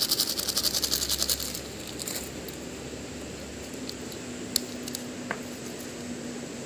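A rapid rattle of a plastic packet being handled for about the first second and a half. Then a hand-held river stone grinds chili and salt on a flat rock, with a couple of sharp stone-on-stone clicks.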